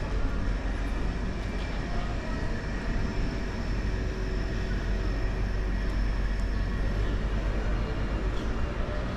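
Steady low rumble of vehicle noise, with no distinct events.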